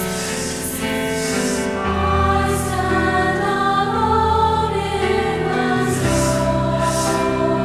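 Choral music: a choir singing sustained notes over a low instrumental bed.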